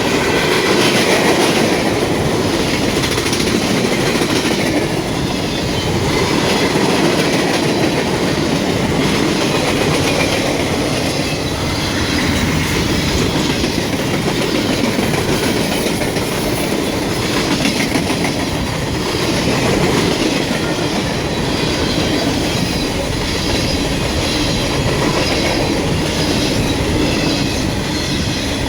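Freight train's cars rolling past steadily, steel wheels clattering over the rail joints.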